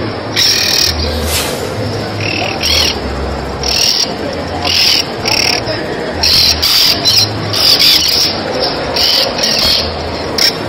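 A large flock of birds calling all at once: a dense, continuous chatter of chirps and squawks, with louder bursts of calls coming irregularly about every half second.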